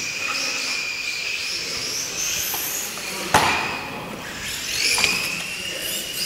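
Mardave V12 radio-controlled car's electric motor and gears whining, the pitch rising and falling as it speeds up and slows around the track. There is a sharp knock a little over three seconds in and a lighter one about five seconds in.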